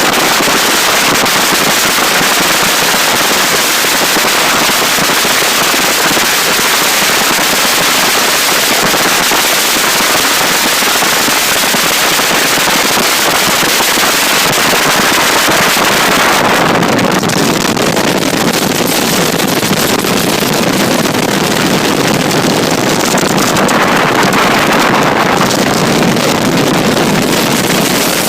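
Loud, steady wind noise buffeting a phone's microphone on a bass boat running at speed. The noise turns lower and duller about two thirds of the way through.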